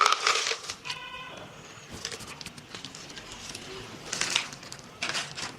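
Plastic packet of ceramic filter rings crinkling as it is handled, in short bursts at the start and again near the end, with a brief squeak about a second in.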